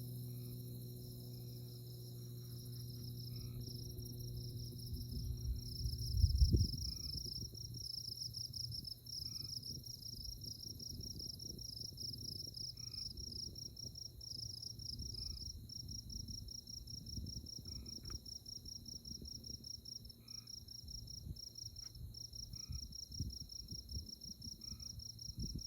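Night chorus of crickets and other insects in tallgrass prairie: a fast, steady, high pulsing trill over a constant high whine, with slower separate chirps every second or two. A low hum fades out in the first few seconds, and a brief low rumble about six seconds in is the loudest moment.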